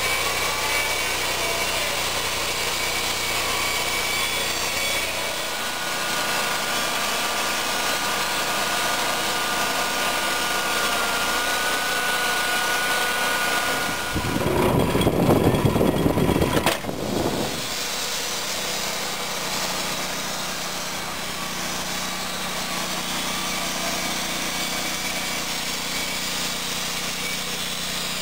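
Wood-Mizer portable band sawmill running steadily as it cuts a log. About halfway through there is a louder, rougher surge lasting about three seconds, which ends in a sharp click.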